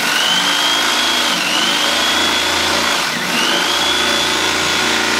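Electric carving knife running as its blades saw through a gun case's foam insert, a steady buzzing whine whose pitch sags and recovers twice, about a second and a half and three seconds in.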